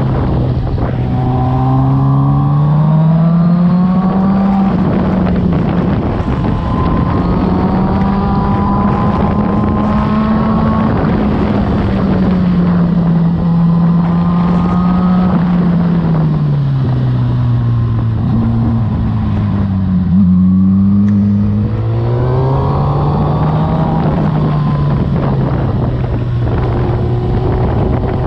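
Suzuki GSX-R sportbike's inline-four engine under way, its pitch climbing and easing off through the corners, with a dip and a quick rise about two-thirds of the way through. Wind rushes over the microphone throughout.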